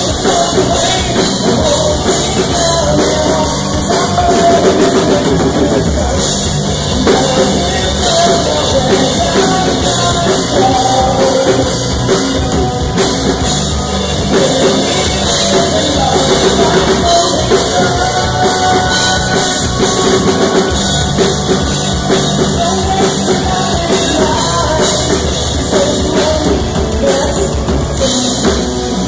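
Live rock band playing: drum kit, electric guitar and a male lead vocal singing into a microphone.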